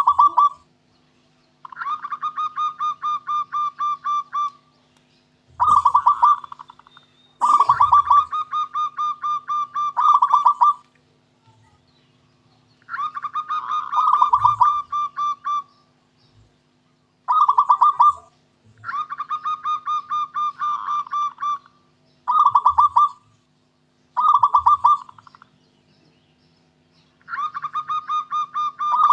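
Zebra dove (perkutut) cooing: about ten phrases of fast, evenly repeated staccato coos, each phrase one to three seconds long, with short pauses between them.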